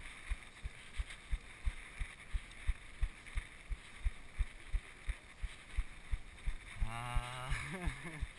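Mountain bike being ridden over grass: a steady low rumble with regular low thumps, about three a second. Near the end a man's voice sounds briefly, rising and falling in pitch.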